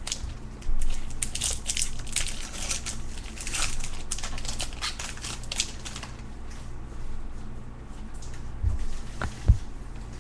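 Crinkling and rustling of trading-card pack wrappers and cards being handled, densest in the first half, with two soft thumps near the end.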